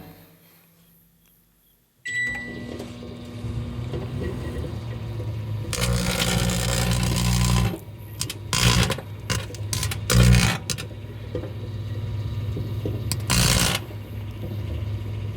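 A microwave oven beeps once as it starts, then runs with a steady hum. Several loud crackling bursts of electrical arcing come from the tinfoil hat inside; the longest lasts nearly two seconds.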